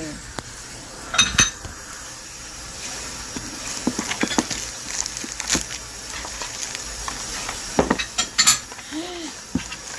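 Clear plastic film crinkling and crackling as it is handled and pulled off a new white lamp, with irregular sharp crackles, the loudest about a second in and near the end.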